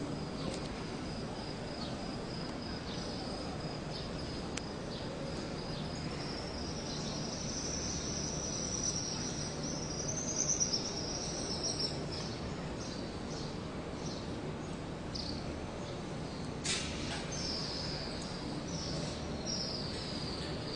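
Steady murmur of a large gathered crowd, with high-pitched chirping above it: a thin steady tone at first, then short falling chirps repeating about every half second in the second half.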